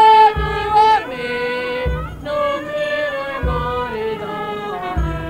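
Small band playing a slow folk dance tune: held melody notes that change every second or so over a low bass beat about every one and a half seconds.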